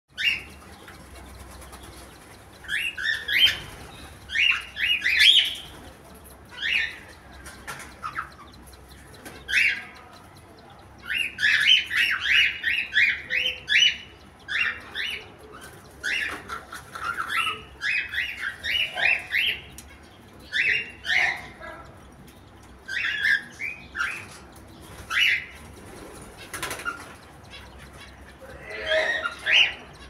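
Cockatiels chirping and chattering in quick runs of short, high notes, one run every second or two with brief pauses between.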